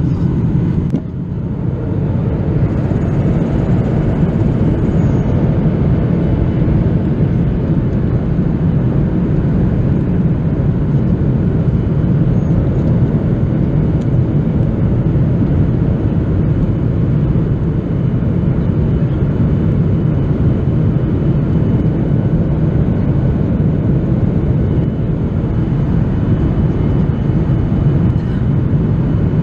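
Steady in-flight cabin noise of a Boeing 737-800, heard from inside the cabin: the drone of its CFM56 engines mixed with airflow over the fuselage. The noise dips briefly about a second in, then holds level.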